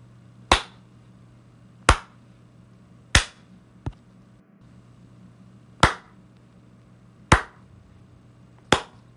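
Single hand claps, one at a time: six sharp claps spaced a second or more apart, with a fainter one after the third.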